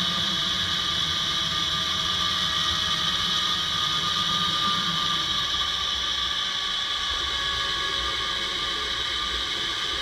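Zipline trolley pulleys running along the steel cable: a steady whirring whine that slowly falls in pitch as the riders slow near the end of the line, mixed with the rush of air over the camera microphone.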